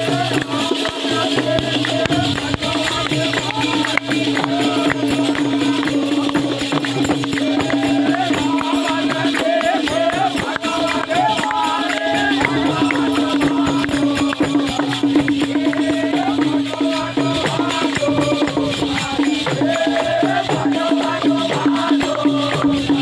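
Village folk devotional music: barrel drums beaten with sticks under a dense, fast jingling rattle, over a steady held note and voices.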